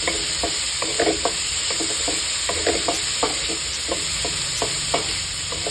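Chopped tomatoes and ginger sautéing in olive oil in a wok, sizzling steadily. A spatula scrapes and knocks against the pan as they are stirred, about two or three strokes a second.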